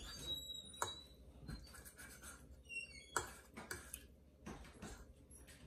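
Faint, scattered clicks and scrapes of a metal fork against a dinner plate as food is picked up.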